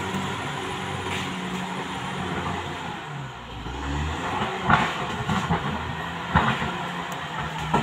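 Caterpillar D6R XL crawler bulldozer's diesel engine running steadily under load, its note dropping lower about three seconds in before picking back up. A few sharp clanks cut through, about five and six and a half seconds in and again at the end, as the tracked machine works.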